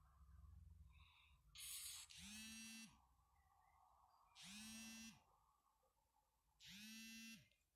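Smartphone vibrating with an incoming call: three faint buzzes about two seconds apart, each under a second long, rising in pitch as it starts and dropping as it stops.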